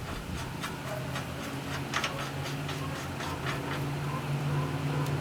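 Metal clicks and taps of a brass fitting and propane hose being connected and threaded onto a generator's fuel regulator, over a steady low hum that grows gradually louder.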